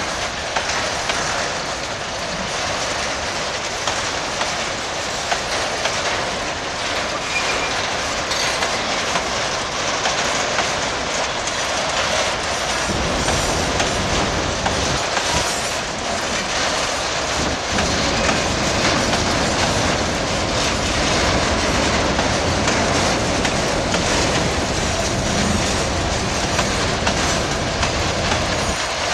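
Freight wagons rolling past on the track: steel wheels clicking over the rail joints above a steady rumble of running gear. The low rumble grows heavier about halfway through.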